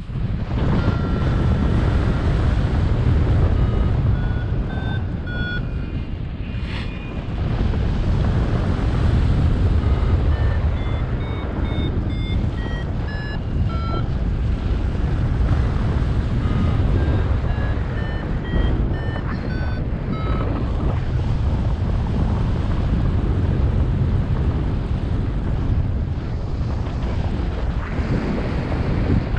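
Airflow buffeting the microphone in flight under a paraglider, with a flight variometer sounding short beeps whose pitch jumps up and down, the audio signal of the glider climbing in lift. The beeps thin out about two-thirds of the way in while the wind noise carries on.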